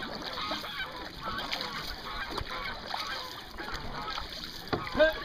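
Geese honking over and over in quick succession, with one louder honk near the end.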